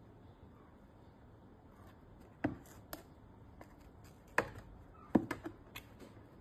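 Handling noise: a scattering of sharp clicks and taps, as of small hard objects being picked up and set down, with the loudest knocks about halfway through and again a second later.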